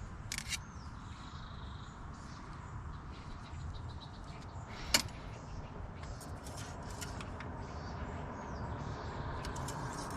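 Scattered light metallic clicks and clinks from hand work on a car wheel and hub, with one sharp clink about five seconds in, over a low steady rumble.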